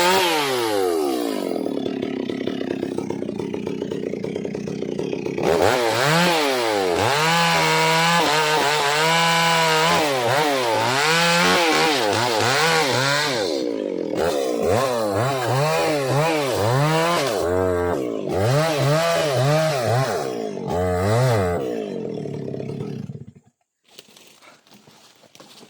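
Stihl MS 382 two-stroke chainsaw running. It drops back to a lower, steady speed for a few seconds, then revs up and down over and over, about once a second. It falls silent abruptly near the end.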